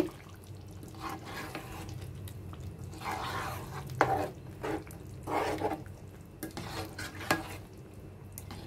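A silicone spatula stirring thick chicken curry gravy in a pan, with irregular scraping strokes and a couple of sharper knocks against the pan.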